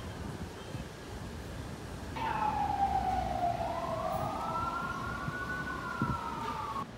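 Emergency vehicle siren wailing over street background noise: a falling tone starts about two seconds in, then two tones rise and hold until it cuts off suddenly near the end.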